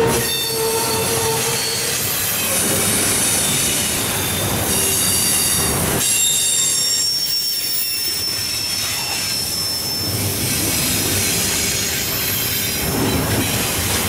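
Double-stack intermodal well cars of a freight train rolling past at close range: a steady rumble of steel wheels on rail, with thin, high-pitched wheel squeals that come and go.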